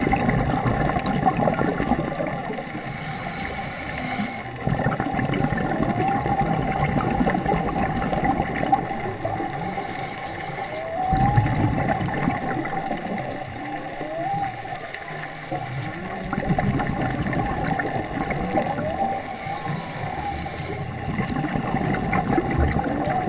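Humpback whale song heard underwater: a series of rising, arching calls that recur every two to three seconds, over a constant underwater hiss and crackle.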